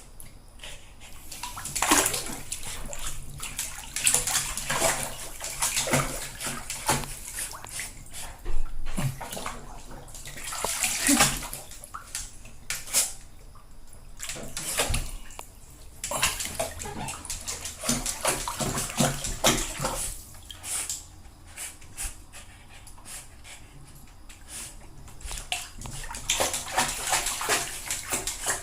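Bath water sloshing and splashing as a dog moves about in a filled bathtub, in irregular bursts with quieter stretches between.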